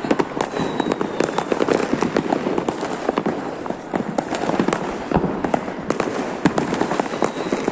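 Fireworks going off, a dense, unbroken stream of rapid sharp cracks and pops.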